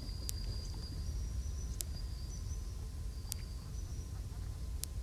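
Open-air wildlife ambience: a steady low rumble under thin, high whistles, each held for about half a second to a second at slightly shifting pitch, with a sharp tick about every second and a half.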